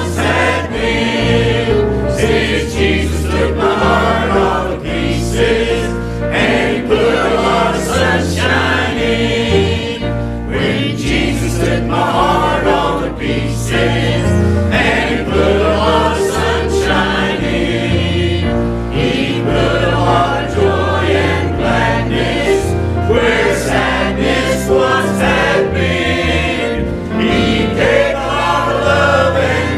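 Mixed church choir of men and women singing a gospel hymn together, with instrumental accompaniment carrying steady low notes underneath.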